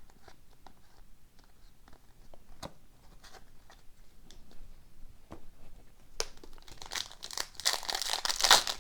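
Trading cards handled with faint clicks and taps, then about six seconds in a card pack's wrapper crinkling loudly as it is torn open.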